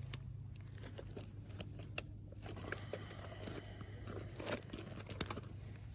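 Scattered light clicks and crunching handling noises, irregular and close to the microphone, over a steady low hum.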